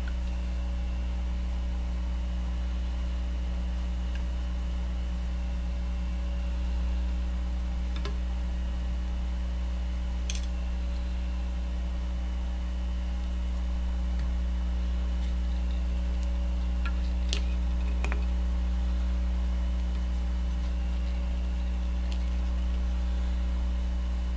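Steady low electrical mains hum, with a few faint, scattered clicks.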